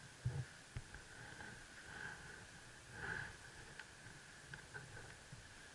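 Quiet room tone inside a large stone church with a steady faint hiss. There are two soft thumps within the first second and a short breathy sniff about three seconds in.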